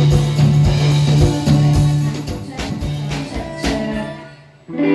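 Live band playing on guitars with bass and drum kit, a steady bass line under regular drum hits. The music breaks off near the end.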